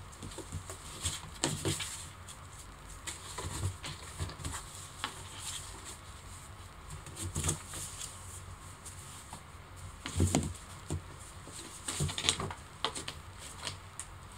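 A kitten's paws thumping, scrabbling and scratching on the top of a cardboard box as it pounces and reaches into holes cut in the lid. Irregular light knocks and scrapes, heaviest about ten seconds in and again around twelve seconds.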